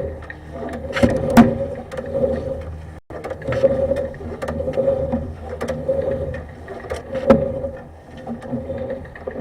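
Sewer inspection camera's push cable being fed down a drain line: repeated scraping and rattling strokes about once a second, with sharp clicks.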